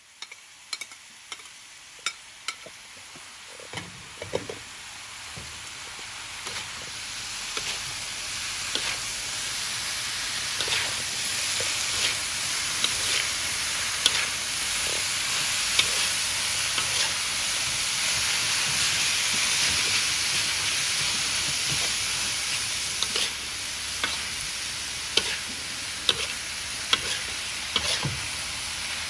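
Pickled mustard greens and pork belly stir-frying in a metal wok: a sizzle that grows steadily louder over the first ten seconds or so as the freshly added wet greens heat, with a metal spatula scraping and clicking against the wok throughout.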